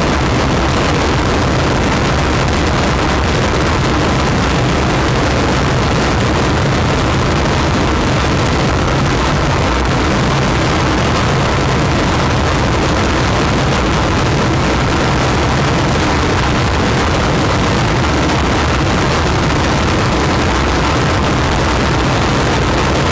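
Homemade amplified noise instrument, a wooden board fitted with metal rods and round discs, played by hand: a dense, unbroken wall of harsh noise over a steady low hum.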